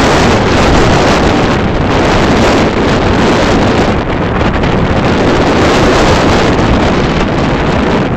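Strong wind buffeting the camera's microphone: loud, steady wind noise that hardly lets up.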